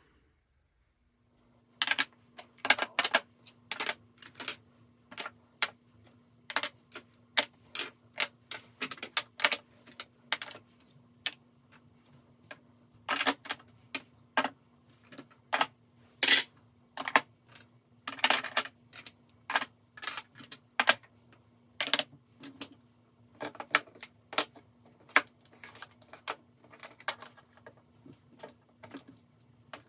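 Small plastic makeup compacts, pots and tubes clicking and clacking as they are set down on a glass vanity top and into a plastic drawer organizer: many sharp, irregular clicks, some in quick clusters, starting about two seconds in. A faint steady hum runs underneath.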